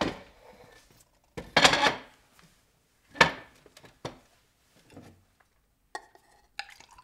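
Glassware being handled and set down on a table: a series of clinks and knocks, the loudest about a second and a half in and again about three seconds in, with smaller taps after.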